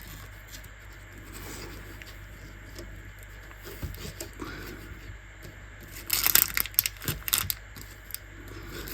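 Small plastic packets of jewellery findings rustling and crinkling as they are sorted through by hand, with a burst of sharper crackles about six to seven seconds in.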